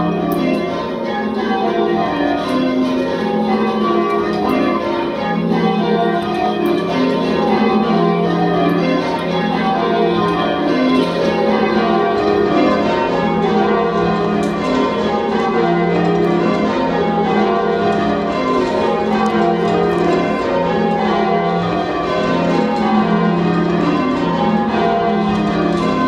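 Church tower bells being rung full-circle in change ringing: the bells strike one after another in repeated rows that step down in pitch, steady and unbroken.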